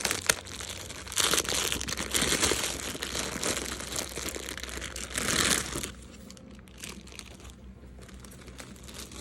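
Plastic bag crinkling and rustling as a doll is pulled out of it, with a sharp click near the start. The rustling dies away about six seconds in.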